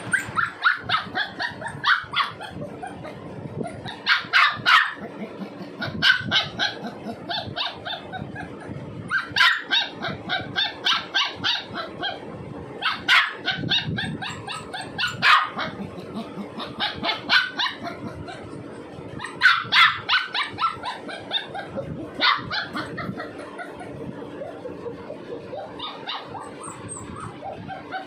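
Golden retriever puppy yapping and barking in quick high-pitched volleys that come every few seconds. It is protesting at being kept shut in its crate.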